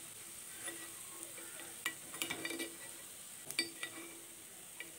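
A spoon scraping and clicking against a non-stick kuzhi paniyaram pan in a handful of short knocks as fried onion balls are lifted out of their cups, over a faint steady sizzle of hot oil.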